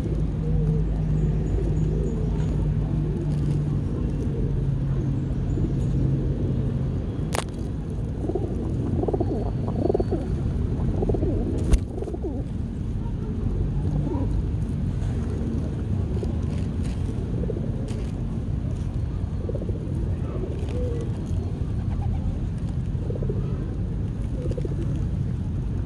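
Pigeons cooing over a steady low rumble. Two sharp clicks come partway through.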